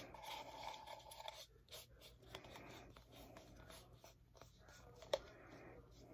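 Faint scratchy brushing of a paintbrush against the inside of a clear plastic cup as yellow paint is spread, with a sharp tap about five seconds in.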